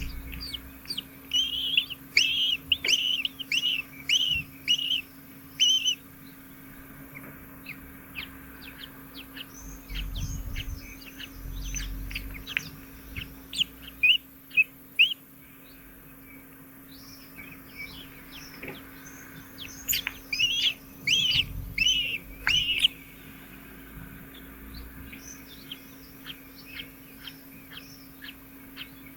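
Nestlings begging: rapid high-pitched chirps in two dense runs, about a second in and again around twenty seconds in, with scattered short high cheeps between. A faint steady hum sits underneath.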